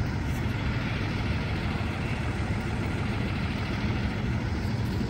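An engine idling, a steady low hum with no change in speed.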